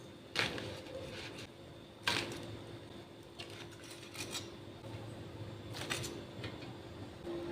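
A few light clinks and knocks of kitchen utensils against cookware, spaced a second or so apart, over a faint steady hum that grows louder near the end.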